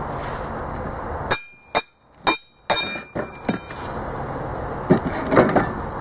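Four sharp blows on a torch-cut steel plate, each ringing like struck steel, knocking the cut-out centre piece free. A few lighter metal knocks and clanks follow near the end, over a steady hiss.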